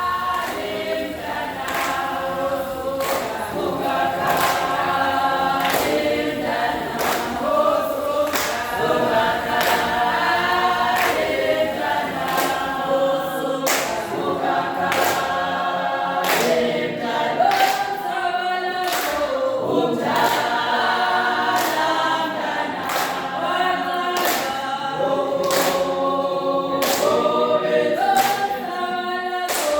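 A group of voices singing together in harmony, a cappella, with sharp strokes marking a steady beat about twice a second.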